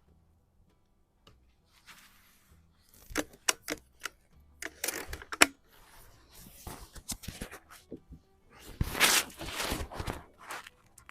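Xisico XS46U underlever air rifle being cocked and loaded: a run of sharp mechanical clicks and clacks, with a louder, rattling stretch near the end.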